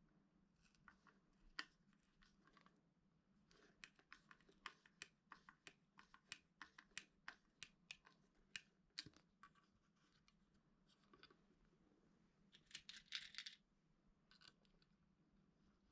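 Faint, irregular light clicks and taps, a couple a second for several seconds, then a brief rustling scrape near the end: small hard parts being handled.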